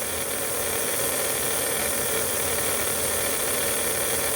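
HO-scale Mega G slot car motor running at steady speed on a dyno, an even whir with a constant hum-like tone, the car being run for a baseline reading.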